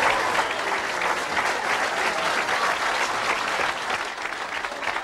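Large audience applauding, a dense steady clapping that eases slightly near the end.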